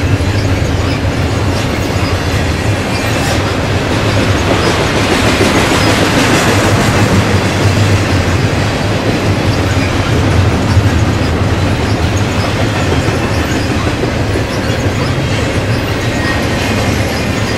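Double-stack intermodal freight train rolling past, its container-laden well cars making a steady, loud rumble of steel wheels on the rails.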